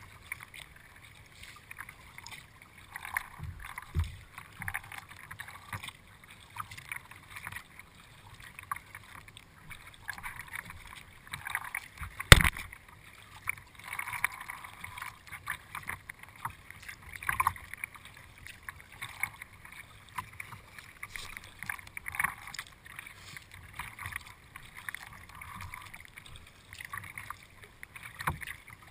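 Kayak paddle strokes: a steady series of splashes as the blades dip into and leave the water, with water running off the paddle and lapping at the hull. A single sharp knock about twelve seconds in is the loudest sound.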